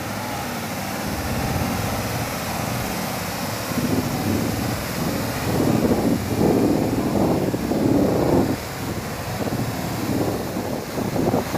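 Waterfall rushing steadily down a rocky gorge, with wind buffeting the phone's microphone in irregular low gusts, strongest through the middle of the clip.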